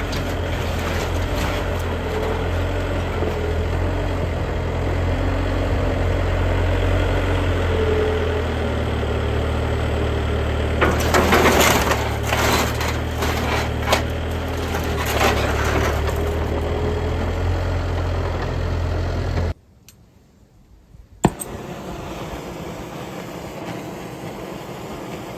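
An engine running steadily at a low pitch, with a cluster of loud knocks and clatters in the middle. Near the end the engine sound cuts off abruptly, a single sharp click follows, and then a quieter steady hum.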